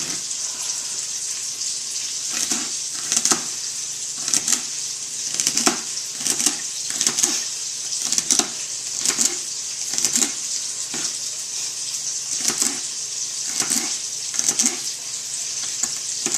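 Pork sausage sizzling steadily as it fries in a pot, with short knocks about once a second.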